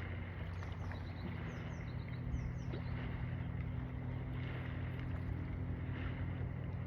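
Steady low motor drone under an even hiss, with a few short high chirps in pairs between about half a second and three seconds in.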